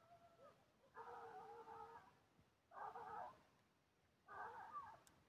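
American foxhounds baying while hunting: three faint, drawn-out bawls about a second and a half apart.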